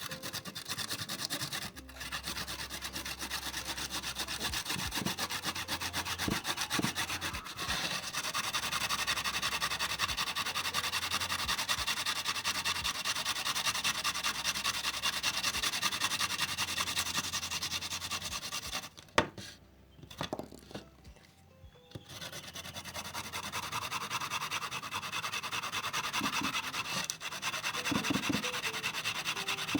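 Shallots being grated on a hand grater: a fast, steady run of rasping strokes that breaks off for a couple of seconds about two-thirds of the way through, then starts again.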